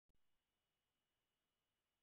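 Near silence: only a very faint hiss.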